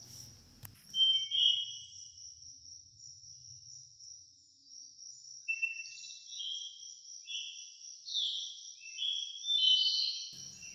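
A steady high-pitched insect trill, with short whistled bird-like chirps over it: a couple about a second in, then a string of them through the second half, some gliding up or down.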